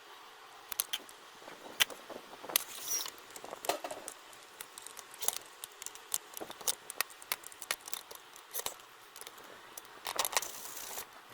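Irregular small clicks, taps and light metallic clinks, with a couple of brief scraping rustles, as parts and tools are handled on a workbench.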